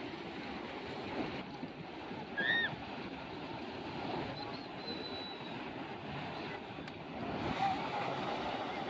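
Sea surf washing in the shallows: a steady rushing noise of small breaking waves, with wind. A brief high chirp sounds once, about two and a half seconds in.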